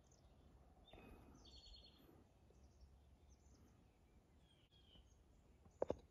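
Near silence: faint outdoor ambience with a few distant bird chirps, the clearest a quick run of high notes about a second and a half in. A short knock near the end.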